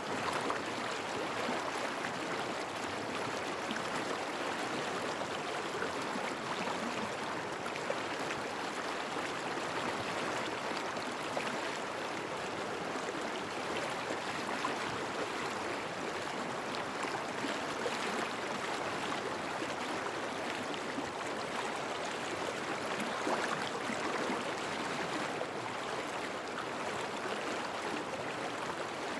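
River water flowing steadily along the bank, a continuous babbling rush with fine splashing detail.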